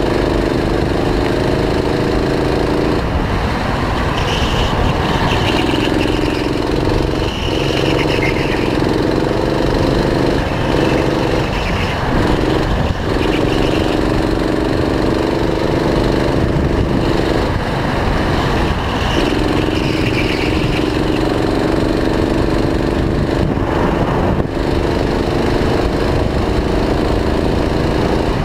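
Go-kart engine heard from the driver's seat, running hard on the straights, its note breaking and shifting several times as the driver lifts off and gets back on the throttle for corners, over a steady low rumble.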